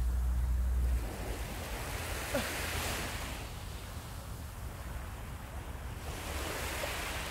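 Surf breaking on a sandy beach: a steady wash of waves that swells about three seconds in and again near the end. Wind rumbles on the microphone in the first second.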